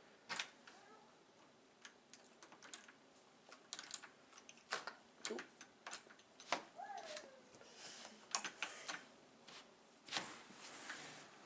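Scattered light clicks and taps at irregular spacing, with a brief vocal squeak about seven seconds in.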